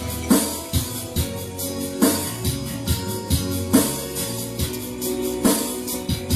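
Instrumental band music with a steady drum-kit beat and held instrument tones, no singing.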